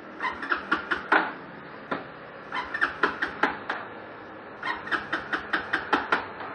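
Starter clutch chattering and squealing during three cold-start cranking attempts, each a burst of about six sharp squeaks, without the engine catching: the starter-clutch fault on this bike.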